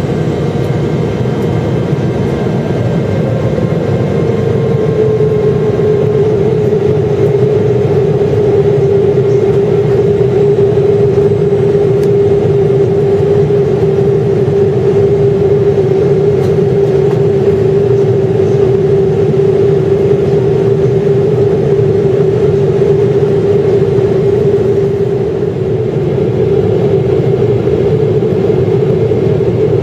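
Cabin noise of a Boeing 777-300ER heard beside its GE90-115B turbofan: a steady rush of engine and airflow with a strong hum. The hum sinks slightly in pitch a few seconds in, then holds steady.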